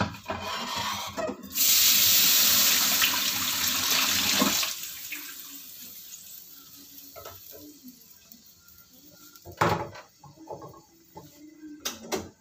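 Kitchen tap running hard into the sink for about three seconds, then a fainter hiss that slowly dies away. A sharp knock of cookware follows, with a few clinks near the end.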